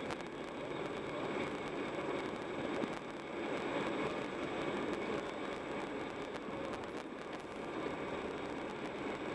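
Car driving along a road: steady engine and tyre noise from inside the cabin.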